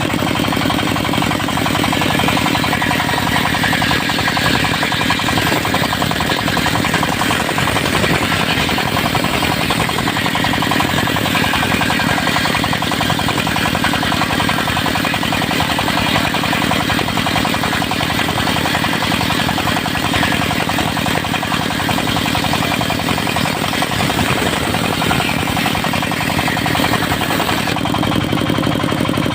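Diesel-driven portable circular sawmill running under load as its disc blade cuts through a mahogany log, with a steady engine drone beneath a dense, rasping cutting noise. The cutting noise sets in about a second in and dies away near the end, leaving the engine running.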